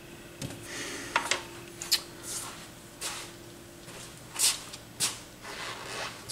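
Hands rummaging through small parts and packets on a workbench. It is an irregular run of light rustles and sharp little clicks as things are picked up and moved about while he searches for replacement turntable lamps.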